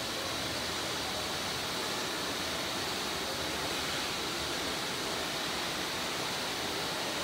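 Steady industrial noise of a factory hall around a sheet-metal printing line: an even rushing hiss with a faint high whine, unchanging throughout.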